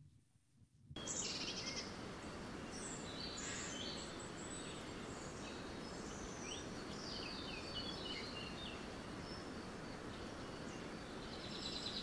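Outdoor nature ambience, starting about a second in: a steady background hiss with birds chirping off and on, swelling slightly at the very end.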